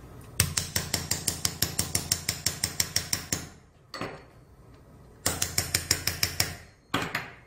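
Ratcheting driver handle clicking in quick, even runs of about six or seven clicks a second as a self-tapping suture anchor is screwed in. A long run of about three seconds is followed by a shorter run and a brief one near the end.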